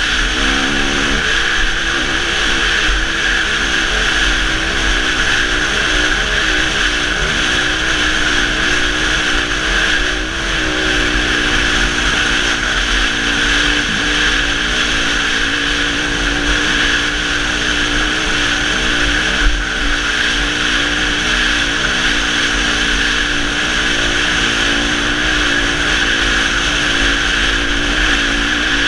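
2006 Suzuki RM-Z250's single-cylinder four-stroke engine running at speed, its pitch wavering up and down with small throttle changes, under a steady rush of wind noise.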